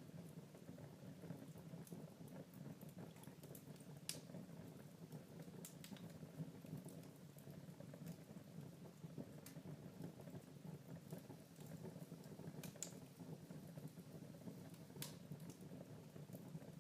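Wood fire crackling faintly in a fireplace: a steady low rumble of burning with scattered sharp pops, the clearest about four seconds in and again near the end.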